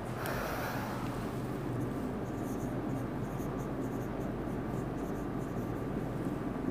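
Felt-tip marker writing on a whiteboard: a run of short, faint scratchy strokes over a low steady room noise.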